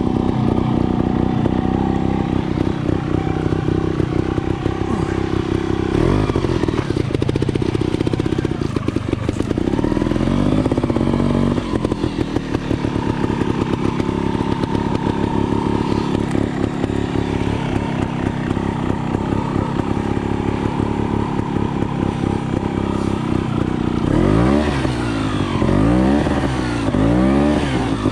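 GasGas 280 trials motorcycle's two-stroke single-cylinder engine running at low revs with occasional throttle blips. Near the end it gets several quick revs in a row.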